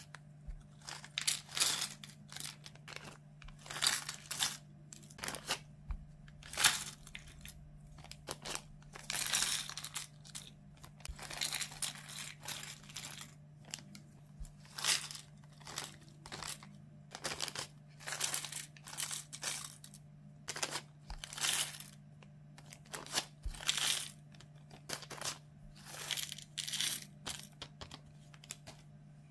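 Loose clear plastic false nail tips being tipped and sorted into the compartments of a plastic nail storage box: dozens of short, irregular rustling clatters of light plastic pieces.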